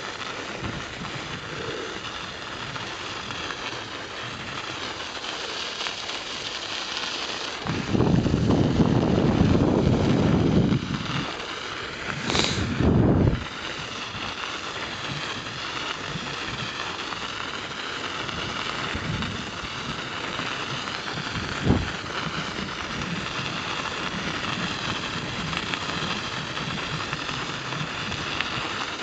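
Bicycle tyres rolling steadily over snow-covered lake ice, heard as a constant hiss, with wind rumbling loudly on the camera microphone in two stretches, about eight and twelve seconds in. A single sharp knock comes a little past twenty seconds.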